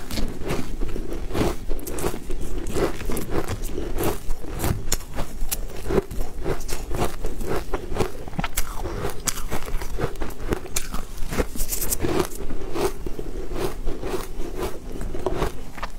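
Close-miked eating sounds: crunchy bites and rhythmic chewing with many small crackles and clicks, as a white piece of food coated in green powder is eaten.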